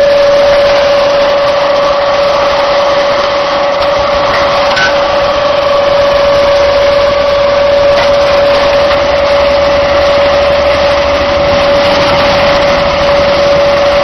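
Diesel concrete mixer pump running steadily: constant engine noise with a single steady whine held throughout.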